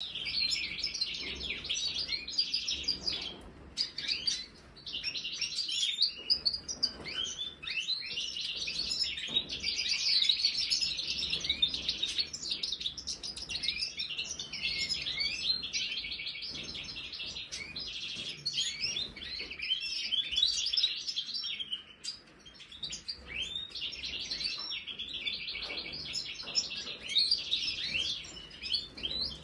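European goldfinches of the large 'major' form twittering and chirping: a dense run of quick, high notes from several birds, with brief lulls about four and twenty-two seconds in.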